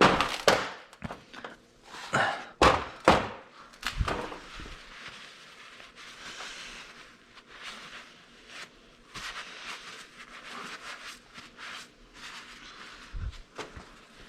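Knocks and thunks from tools and parts being handled during skid-steer maintenance: a run of sharp knocks in the first four seconds, then quieter scattered clicks and rustling.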